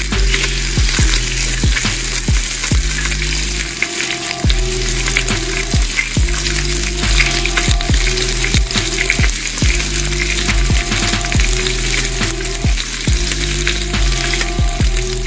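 Food frying on a hot flat-top griddle, a dense steady sizzle, with steam rising from under a metal melting dome. Under it runs a music beat with a deep bass line and evenly spaced kick-drum thumps.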